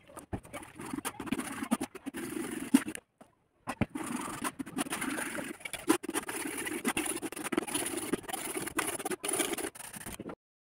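Spoon pressing and scraping thick mango pulp through a stainless-steel mesh strainer: wet squishing and irregular scraping against the mesh, with a short break about three seconds in.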